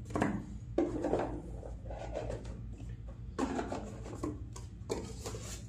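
Razor packaging boxes being handled and put away: irregular rubbing and sliding of boxes against each other, with a few bumps as they are set down.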